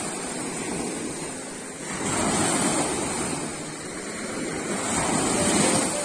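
Small Caspian Sea waves breaking and washing up a sandy beach in foam, the surf swelling twice and falling back between.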